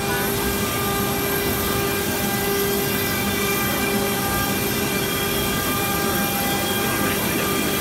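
Stone-carving CNC router spindle running steadily as its bit carves sandstone: an even whine made of several steady tones over a constant hiss.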